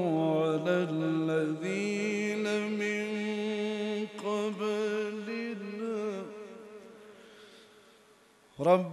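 A man's voice reciting the Quran in long, drawn-out melodic notes with a wavering ornamented pitch, in the chanted tajweed style. It fades away over the last few seconds, and a loud voice cuts back in right at the end.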